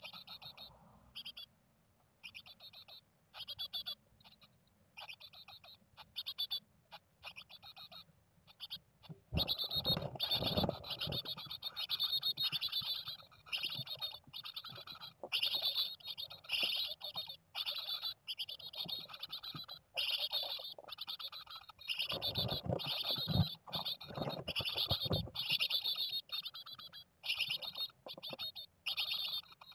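Japanese tit nestlings, about 16 days old, begging for food in the nest box: rapid high cheeps, sparse and soft at first, then loud and nearly continuous from about nine seconds in, with a few low thumps from inside the box.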